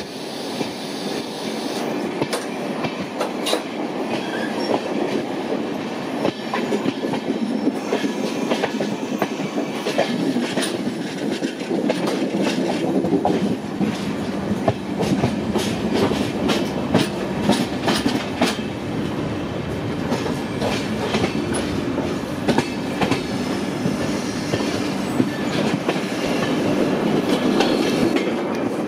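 Passenger train running along the track: a steady rumble with the wheels clattering in irregular clicks over rail joints.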